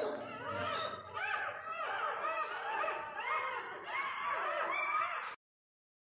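A litter of young puppies whining and crying, many short high whimpers rising and falling over one another, which the uploader puts down to cold and hunger. The sound cuts off suddenly a little after five seconds in.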